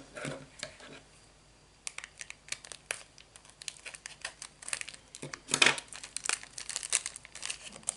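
Small clear plastic packet of scrapbook corners crinkling and crackling as it is turned over in the hands, in a run of short crackles with a brief lull about a second in and a louder burst a little past halfway.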